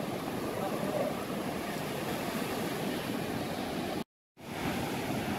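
Ocean surf breaking and washing up a sandy beach, a steady rush of waves. The sound cuts out completely for a moment about four seconds in, then the surf resumes.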